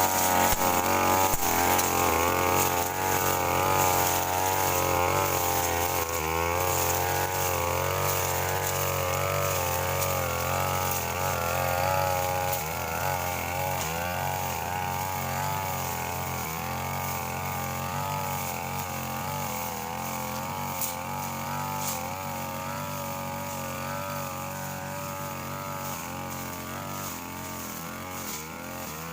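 Two-stroke brush cutter engine running at working speed while cutting grass and brush. Its pitch keeps rising and dipping as the blade takes and sheds load. It grows gradually quieter over the second half.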